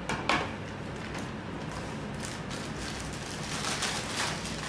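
Steady kitchen background noise with a low hum, two light clicks near the start, and faint rustling of a plastic piping bag being handled near the end.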